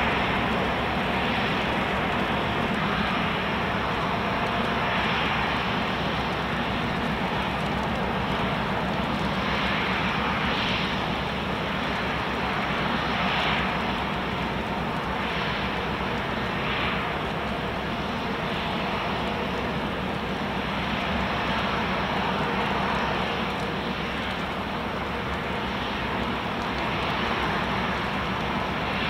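Steady outdoor background rumble with no distinct events, only a few faint soft swells.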